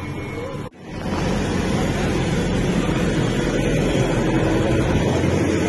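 Backhoe loader's reversing beeper giving a last short beep over its running engine. The sound breaks off under a second in, then a backhoe's diesel engine runs loud and steady close by.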